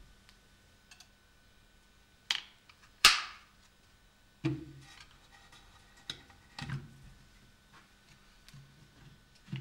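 Handling noises of an Edison phonograph: a few separate sharp clicks and knocks of metal and wood as the machine on its wooden base is set down and its mechanism moved, the loudest a sharp knock about three seconds in, with duller thumps near the middle.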